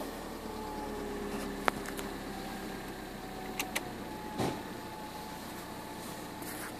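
Kia Sephia's engine idling just after being started, heard from inside the cabin, its speed easing down slightly in the first seconds. A few sharp clicks and one duller knock sound over the idle.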